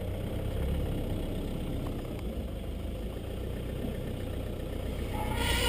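Land Rover engine idling steadily, heard from inside the cab, a low even rumble.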